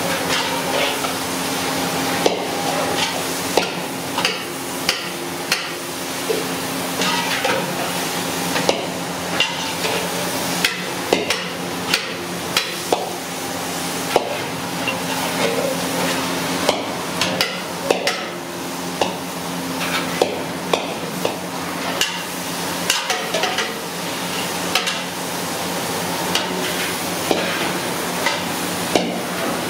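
A long metal ladle scraping and knocking against a wide kadai as mutton pieces are stirred and fried, with a steady sizzle from the frying underneath. The knocks come at irregular intervals, roughly one or two a second.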